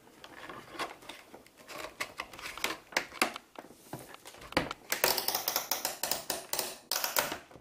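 Flat screwdriver prying at the plastic cover of an all-in-one computer: a rapid run of clicks, scrapes and plastic cracks, thickest in the last couple of seconds before it stops.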